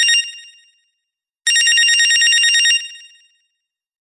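Telephone ringing with a fast bell-like trill. A ring fades away at the start, then one full ring of about a second and a half rings out and dies away.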